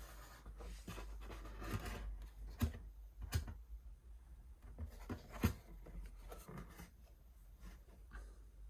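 Faint handling noises: rubbing and rustling with a few light knocks or clicks, over a low steady hum.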